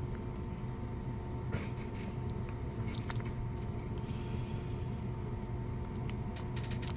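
A few faint, small clicks and ticks from hands working old tubing off a fan motor's winding leads, over a steady low background hum.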